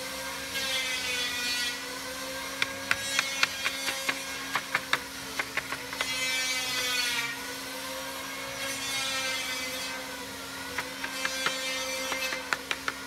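A wooden mallet tapping thin wooden strips into a door frame in two runs of quick, light knocks. Behind it a machine hums steadily, with a whine that rises and falls every few seconds.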